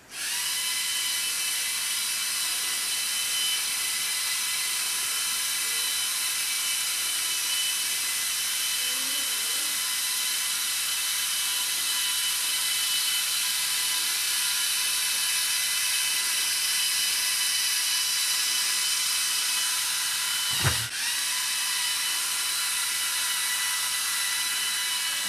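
Lego Technic electric motors and gear train of a 50-wheel vehicle whining steadily as it drives. About twenty seconds in there is a short knock and the whine dips briefly in pitch before recovering, as if the drive was briefly loaded.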